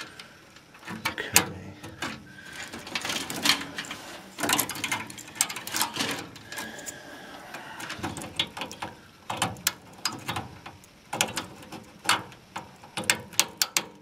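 Irregular clicks, snaps and rustling as wires with insulated spade connectors are handled and pushed onto the terminals of a furnace control board.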